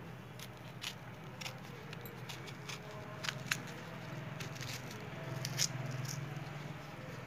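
A small knife slitting fresh green chillies lengthwise in the hand, giving scattered faint crisp clicks and snips, a few of them sharper than the rest. A low steady hum runs underneath.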